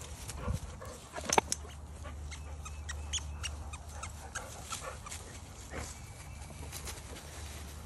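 Dogs playing in grass: a sharp knock about a second and a half in, then scattered light clicks, rustles and brief dog sounds over a low steady rumble.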